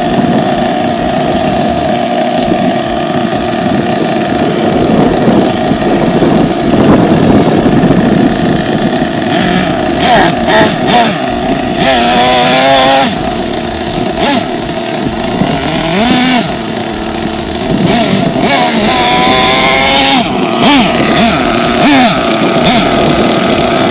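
Small two-stroke nitro glow engine of an LRP S8 BX RC buggy running with a high, buzzing note. It is revved up and down a few times, midway and again later.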